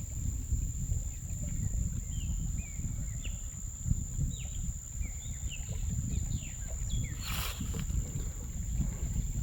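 Outdoor ambience: a steady low rumble with a series of short, high, downward-sliding bird chirps through the middle. About seven seconds in there is a brief rushing noise.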